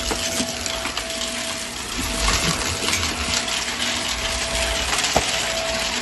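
Vacuum cleaner running steadily with a motor whine, with a few sharp ticks of debris being sucked up. The clearest tick comes about five seconds in.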